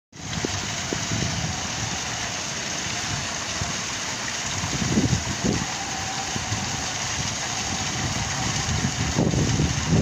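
Water from an ornamental rock waterfall splashing down stone ledges into a pond as a steady rushing hiss. Low rumbles swell over it about five seconds in and again near the end.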